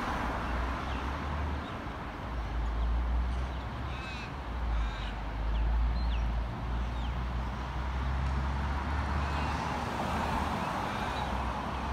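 Outdoor street ambience: a steady low rumble of wind and distant traffic, with a bird giving a few short calls around the middle.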